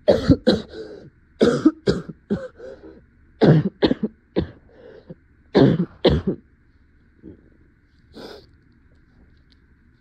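A woman coughing in a fit: several loud clusters of quick coughs over the first six seconds, then it settles. These are the coughs of a head cold.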